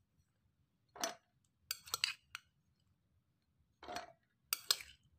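A metal spoon clinking against dishes as boiled chillies, shallots and garlic are spooned into a food chopper's bowl: a few short, sharp clinks about a second in, a quick cluster around two seconds, and two more near four and five seconds.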